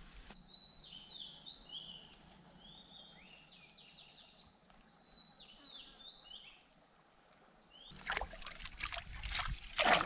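Birds chirping, short notes sliding up and down, over a quiet stream. From about eight seconds in, a quick run of splashes as a bamboo pole is jabbed into shallow water, loudest near the end.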